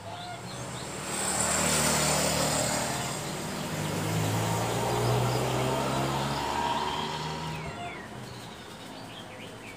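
A motor vehicle driving past. Its engine noise swells about a second in, holds for several seconds with a steady low engine tone, and fades away near the end.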